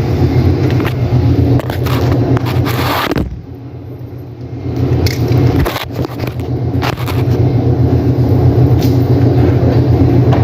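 Steady low mechanical hum with scattered clicks and knocks of handling; the hum dips briefly about three seconds in.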